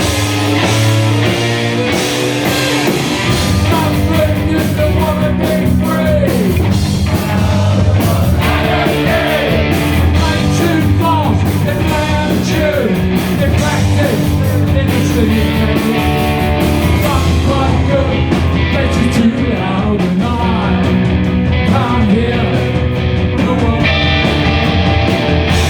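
Punk rock band playing live at full volume through a PA, an instrumental break with no singing: electric guitar lead with bent notes over bass and drums.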